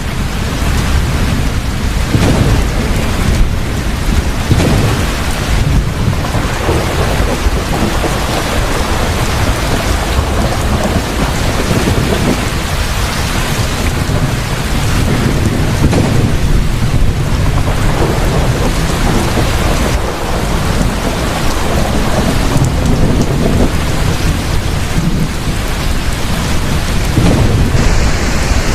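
Heavy rain falling steadily in a thunderstorm, with deep rolling thunder rumbling underneath.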